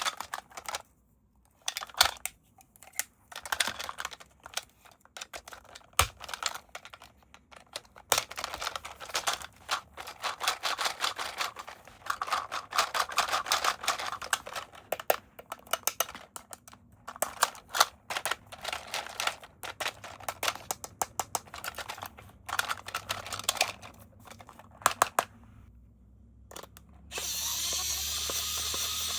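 Plastic toy packaging and parts being handled: dense runs of clicks and crackles, with pauses. Near the end comes a steady hiss lasting about two seconds.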